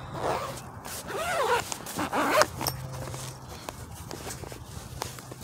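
The zipper of a soft-sided fabric rifle case being pulled shut in three short strokes over the first couple of seconds, followed by lighter ticks and rustles of the case.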